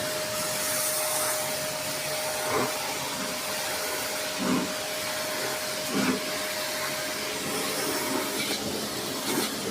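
A steady hissing machine noise with a constant hum tone, broken by a few short knocks, about four in all.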